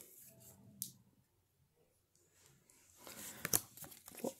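Faint handling of trading cards just pulled from a foil pack: a single light tick about a second in, then soft rustling and sliding from about three seconds, with a couple of sharp snaps near the end.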